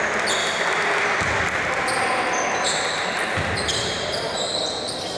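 Indoor basketball game: sneakers squeaking on the hardwood court in short high overlapping squeaks, a ball bouncing now and then, and players' and coaches' voices echoing in the gym.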